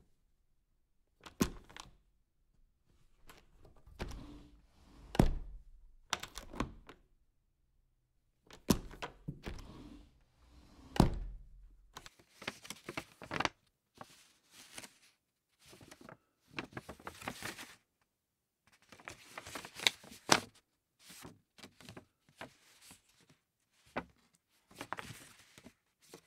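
A small handmade miniature phone box being handled and opened: scattered taps, soft thunks and clicks as the lid comes off and the box parts are put down, with rustling of the box material while the insert and tiny phone are taken out.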